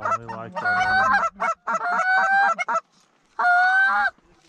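Canada goose call blown by a hunter at close range to an approaching flock: quick clucks at the start, then three long held honks, the last ending about four seconds in.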